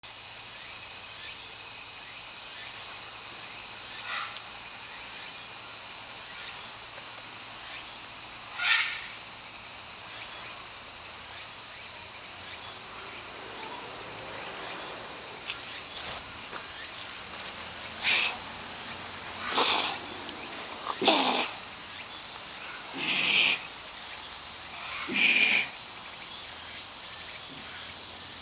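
Steady, high-pitched insect chorus throughout. Over it, a Siberian lynx gives several short, sharp angry huffs, most of them in the second half.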